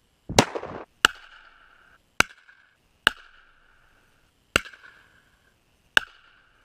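Six rifle shots at uneven intervals, each a sharp crack followed by a short fading ring; the first has a longer, denser tail.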